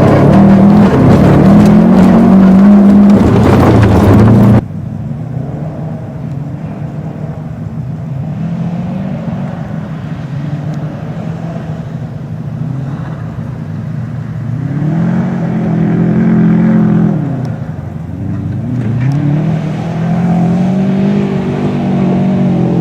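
Car engine revving hard as the car is driven sideways through mud. About four and a half seconds in, the sound drops suddenly to a quieter engine note, which then rises and falls in pitch twice as the revs climb and ease off.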